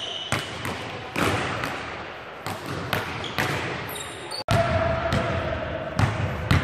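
Basketball dribbled on a hardwood gym floor: irregular bounces, with a sudden cut in the sound about two-thirds of the way through.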